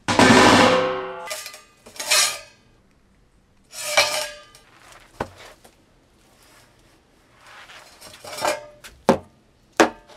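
A stainless steel tube set down on a wooden workbench with a loud clang that rings on for about a second. It is followed by a series of separate shorter knocks and rustles as a ceramic wool blanket and other materials are set down on the bench one by one.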